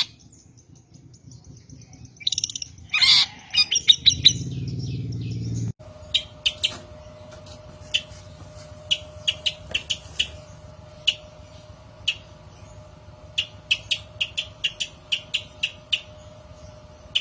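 Recorded long-tailed shrike (cendet) calls used as a lure: short, sharp high chirps. A few come in the first seconds, then a low buzz ends at an abrupt cut, and after it come many separate chirps at irregular spacing over a faint steady hum.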